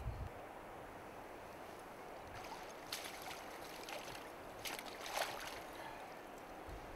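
Steady rush of river water, with short splashes about three seconds in and again around five seconds in as a hooked trout is drawn into a landing net.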